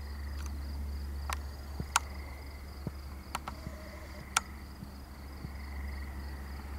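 Crickets chirring steadily in a high, even trill over a low steady hum, with a few sharp clicks in the first half.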